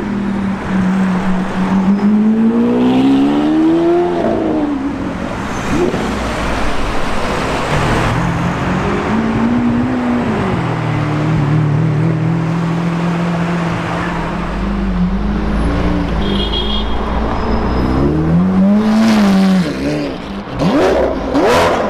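Sports car engine revving and accelerating, its pitch climbing and falling several times, with a few sharp cracks near the end.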